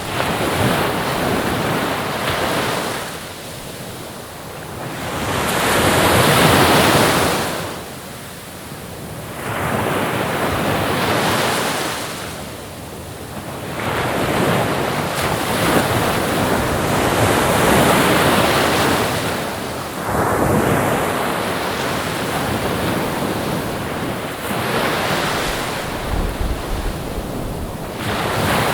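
Ocean surf: waves breaking and washing in, the rush of water swelling and falling back every few seconds.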